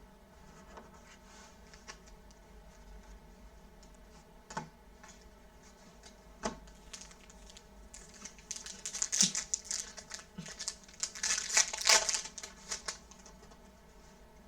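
Foil trading-card pack wrapper crinkling and tearing as it is opened: a couple of single taps, then a dense run of crackling in the second half.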